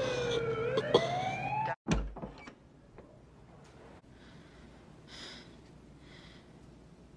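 Ambulance siren wailing, its pitch rising and falling, then cut off abruptly about two seconds in, followed by a short dull thump.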